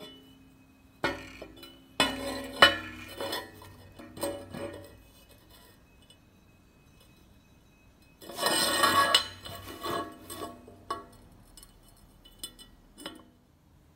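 Steel tubes knocking and clinking against a steel bench top as they are handled and set down, each knock followed by a short metallic ring. About eight seconds in comes a denser clatter lasting about a second, then a few lighter clinks.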